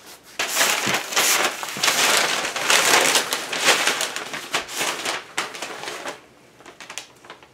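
Newspaper crinkling and rustling as a cat paws and scratches at the sheets, trying to cover its urine. The rustling starts about half a second in and dies down about six seconds in.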